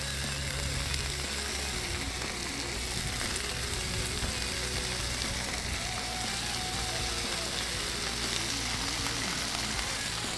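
Homemade bacon and hash browns frying on a flat-top griddle, a steady, even sizzle.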